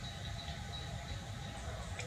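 Faint, short, high-pitched squeaks from a baby macaque, several in a row in the first second. Under them is a low rumble of cloth and handling noise as a shirt is buttoned on.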